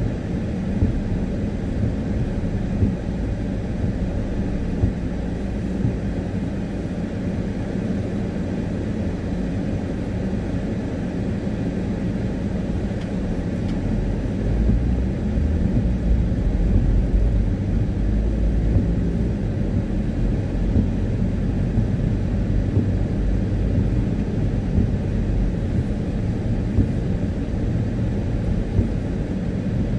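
Road noise inside a moving vehicle on a wet road: a steady low rumble of tyres and engine that gets a little louder about halfway through.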